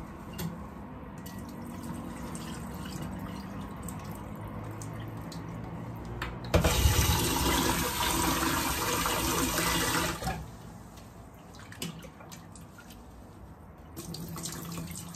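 Hands swish and rub soaked glutinous rice in water in a glass bowl, rinsing the starch off. About six and a half seconds in, a kitchen tap runs hard onto the rice for about four seconds. Near the end the cloudy rinse water is poured off into a stainless-steel sink.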